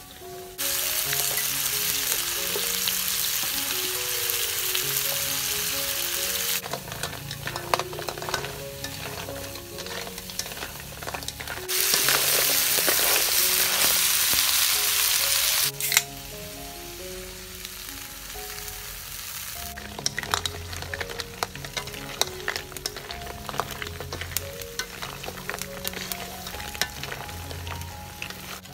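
Apple snails frying in a hot wok, with the sizzle surging loud twice for several seconds at a time. In between, a wooden spatula clicks and scrapes against the wok as the snails are stirred.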